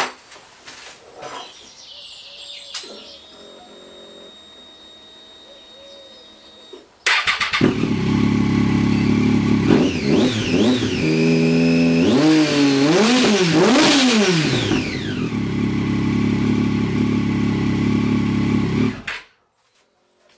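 Triumph Street Triple's inline-three engine, breathing through homemade stainless steel exhaust cans with their baffles removed. It starts abruptly about seven seconds in, is revved up and down a few times, settles back to a steady idle and is switched off near the end.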